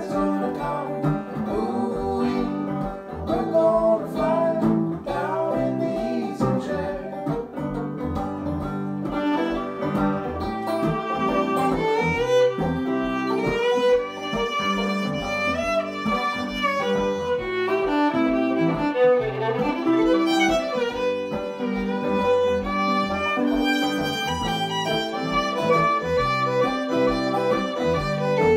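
Instrumental break of a folk-country song: fiddle playing the lead melody over strummed guitar and banjo.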